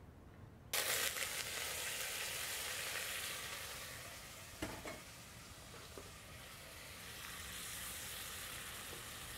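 Chopped onion dropped into hot oil in a heavy pot, starting a sudden loud sizzle less than a second in that gradually settles into steady frying. A wooden spoon knocks against the pot twice as the onions are stirred.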